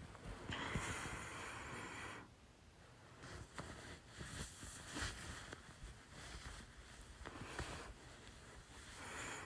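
A woman hiccuping: a few short, sudden hiccups a second or two apart, with breathing between them and a long breath about half a second in.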